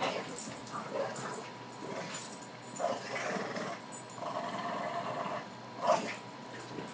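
Two dogs growling in play while they tussle over a small toy basketball, in several drawn-out growls with one short louder sound near the end.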